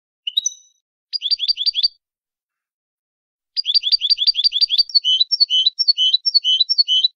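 European goldfinch singing in the Málaga song style (canto malagueño). A single short call is followed by a quick trill of about five falling notes. After a pause comes a fast run of about ten notes a second, which changes about halfway through into a slower, repeated two-note phrase and then stops.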